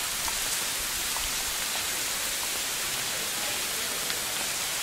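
Steady, even hiss of noise, strongest in the high range, with a few faint ticks.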